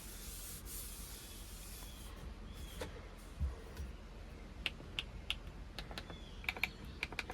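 Faint scattered clicks and light taps from handwork, a few at first and coming more often in the second half, over a low hiss.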